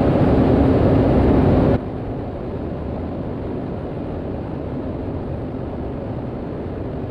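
Steady in-flight cockpit noise of a Cessna 208B Grand Caravan's single PT6A turboprop. A louder rush cuts off abruptly a little under two seconds in, leaving a duller, steady drone.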